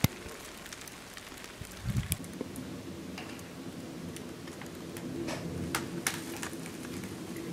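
Heavy wet snow falling, a steady rain-like hiss with a few sharp ticks. There is a soft thump about two seconds in, and after it a low steady drone continues underneath.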